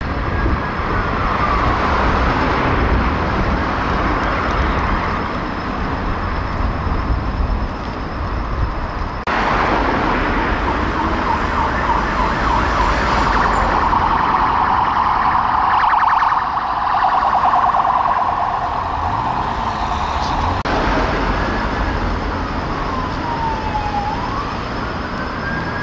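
Sirens of UK police response cars sounding over city traffic, alternating a slow rising and falling wail with a fast yelp. The sound changes abruptly twice as different passing vehicles take over.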